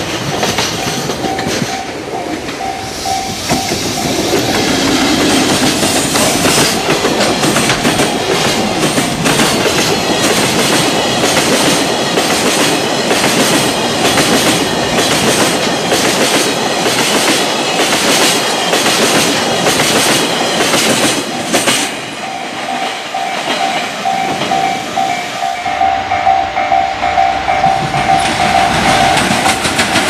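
A level-crossing warning bell rings in a steady repeating ding. A long freight train of tank wagons passes close, its wheels clattering in a fast clickety-clack over the rail joints. The clatter stops abruptly about two-thirds of the way through, and the crossing bell rings on alone.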